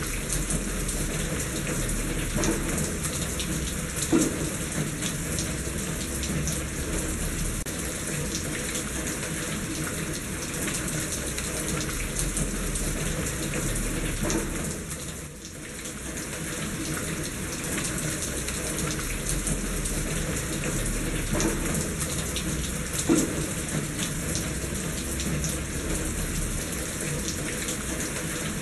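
Steady rain with water running in a gutter; the sound dips briefly about halfway through, and two sharper splashes stand out.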